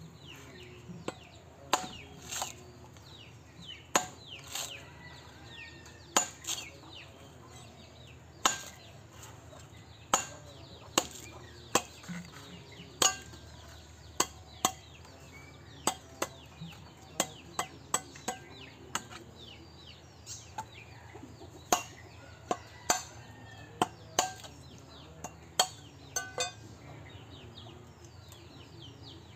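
Machete chopping the husk off the top of a green coconut: repeated sharp strikes, irregularly spaced at about one a second, as the blade cuts into the fibrous husk and knocks against the stone slab beneath.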